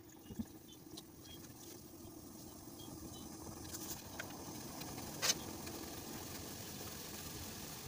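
Water with ginger in a steel saucepan heating and coming to the boil: a steady rushing noise that grows louder, with a sharp click about five seconds in.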